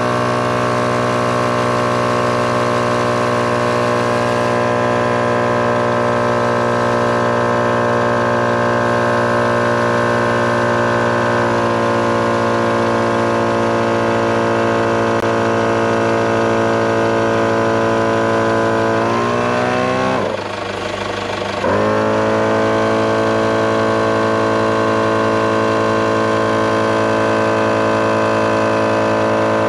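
Thumper Max Dual MkII portable 12-volt air compressor running steadily under load while inflating a 4x4 tyre from 15 psi. It makes a loud, even motor-and-piston hum. About twenty seconds in, its pitch sags and it briefly drops, then picks back up.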